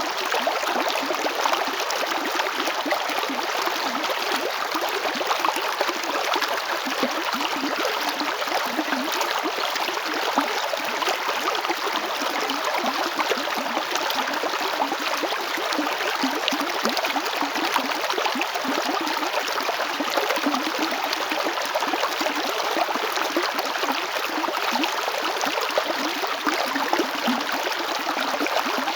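River water flowing over rocks: a steady rushing and babbling with fine splashing.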